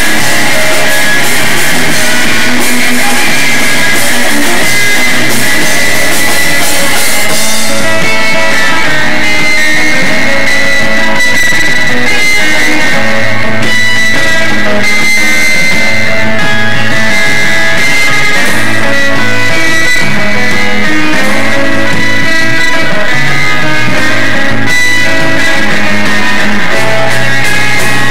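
Live rock trio playing an instrumental: electric guitar over bass and drum kit, loud throughout.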